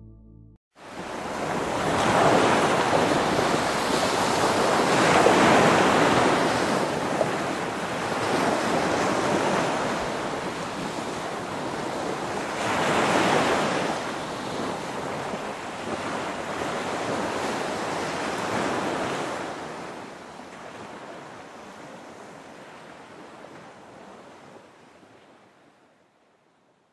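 Sea surf washing onto a flat sandy beach, rising and falling in slow swells, then fading out over the last several seconds.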